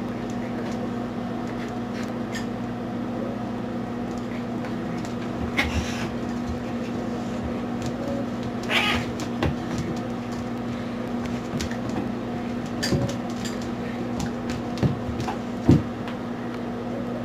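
A tabby cat and a Shiba Inu puppy play-fighting: scattered knocks and scrabbles of paws and bodies on a tile floor, with a few short cat vocalizations. A sharp thump comes near the end, and a steady low hum runs underneath.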